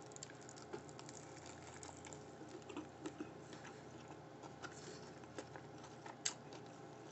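Faint chewing of a bite of deep-fried sushi burrito: soft, scattered mouth clicks and ticks, with a sharper click about six seconds in.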